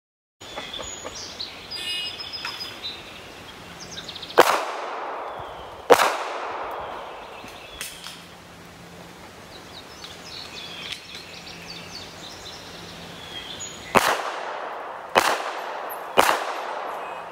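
Smith & Wesson M&P9 2.0 9mm pistol fired five times: two shots about a second and a half apart, then after a pause of about eight seconds for a move to cover and an emergency reload, three more shots about a second apart. Each sharp report is followed by a short echo.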